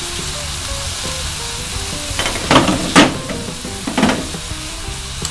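Stir-fry sizzling in an aluminium wok, with a few brief louder utensil strokes in the wok around two, three and four seconds in. Background music plays underneath.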